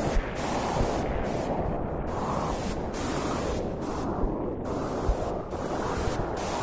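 Steady rushing white noise, heaviest in the low and middle range, of the kind played to settle a crying baby. The upper hiss drops out and comes back several times.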